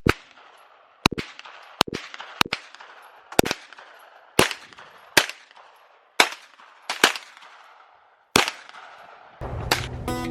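A 9mm Hi-Point carbine fired in slow single shots, about ten in all at roughly one a second, each crack followed by a short echo. Strummed guitar music comes in near the end.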